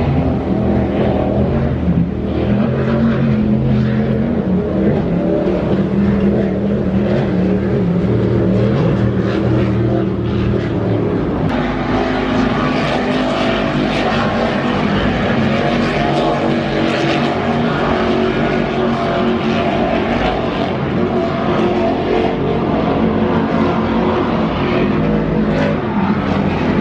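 Racing powerboat engines running at high speed, a loud steady drone whose pitch shifts partway through.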